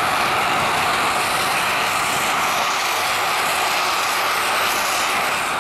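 Steady, loud hiss of steam blasting out from the side of a C2-class narrow-gauge steam locomotive.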